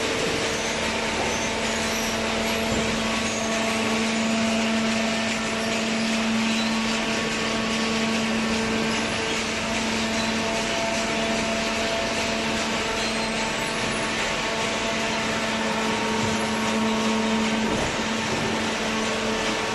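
Cardboard baler with its feed conveyor running: a steady machine hum with a constant low drone over a continuous rushing noise.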